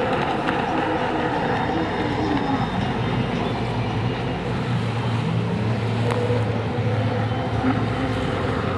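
Racing jet ski engines running hard, a steady drone whose pitch shifts up and down as the craft throttle through the turns.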